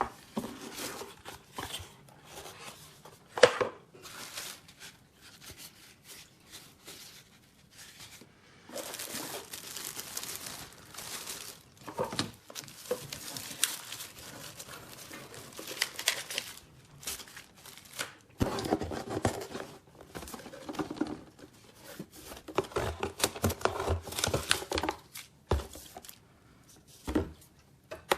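Product packaging being opened and handled: tearing and crinkling with irregular rustling, and a sharp knock about three and a half seconds in.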